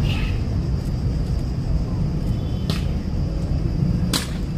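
Steady low rumble of city traffic and wind, with two sharp clacks about a second and a half apart: Evzone guards' hobnailed tsarouchia stamping on the marble paving during the changing of the guard.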